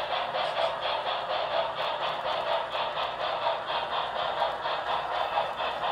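HO scale model train running along the track, its wheels clicking in a quick, even rhythm of several clicks a second over a steady rolling clatter.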